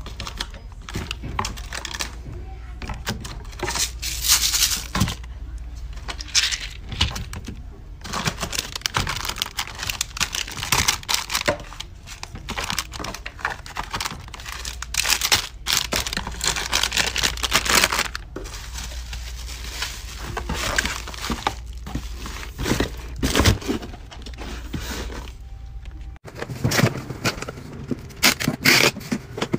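Plastic candy wrappers and packets crinkling in repeated bursts as they are handled and set into a box. Near the end, packing tape rips off a tape gun across a cardboard box.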